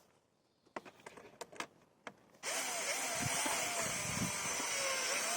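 A few light clicks of handling, then about two and a half seconds in a power drill-driver starts and runs steadily, driving a screw.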